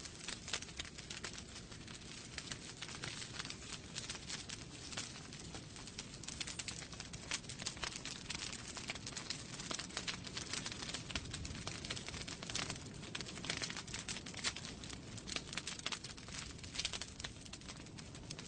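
Wood fire crackling in a fireplace: a dense, irregular run of small pops and snaps over a steady low rumble of the flames.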